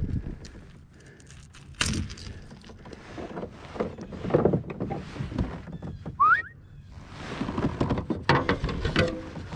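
Knocks, thumps and rattles of fishing gear being handled aboard a plastic fishing kayak, with a strong thump about two seconds in and a short rising squeak about six seconds in.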